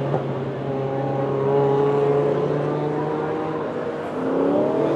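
A car's engine under load on an autocross cone course, held at fairly steady revs and then revving up with a rising pitch near the end. A steady low hum runs underneath and stops about three and a half seconds in.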